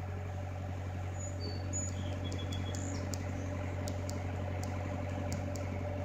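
Skid steer loader's engine running steadily at a constant pitch, with a few short bird chirps in the first half.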